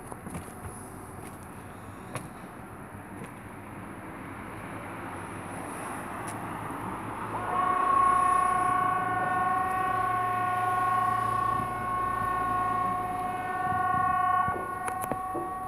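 Swedish outdoor civil-defence warning siren sounding its "Important Public Announcement" test signal. It winds up over a few seconds, then holds a steady two-note tone for about seven seconds; near the end the higher note drops out and the lower one lingers.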